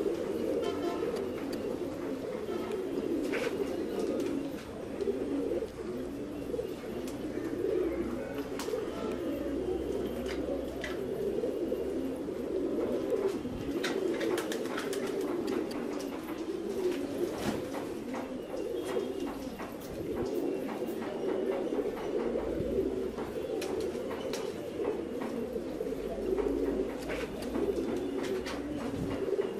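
Several fancy pigeons cooing without a break, their calls overlapping, with scattered light clicks and taps among them.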